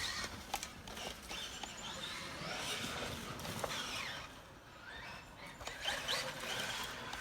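Electric RC truck, a Traxxas Maxx, driven on a lap at a distance: a motor whine that rises and falls with the throttle, over tyre noise and scattered knocks.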